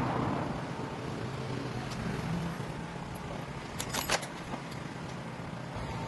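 Steady workshop background noise with a few sharp clicks, a quick cluster of them about four seconds in, from metal parts of a steering column being handled on a bench.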